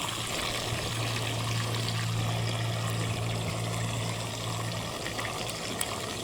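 Rainbow trout frying in oil in a pan, sizzling and crackling steadily. A steady low hum runs alongside and stops about five seconds in.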